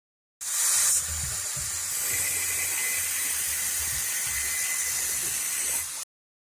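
A loud, steady hiss that starts abruptly and cuts off suddenly, with an irregular low pulsing underneath.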